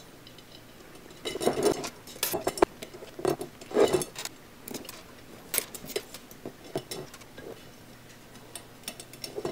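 Light metallic clicks and clinks as spokes are handled and knock against the hub and rim of a BMX wheel being laced by hand. The clicks come thick for the first few seconds, then thin out to occasional ticks.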